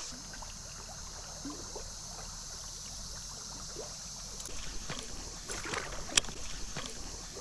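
Steady creek-side background of insects chirring and water moving. In the second half come faint irregular splashes and clicks, with one sharper click about six seconds in.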